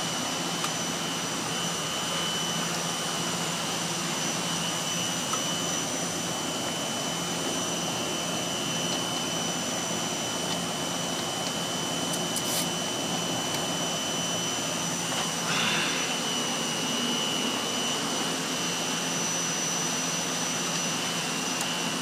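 Air-conditioning outdoor condensing unit running in cooling mode: a steady rush of condenser-fan air with a steady high whine. A short click comes about twelve seconds in and a brief scrape about fifteen seconds in.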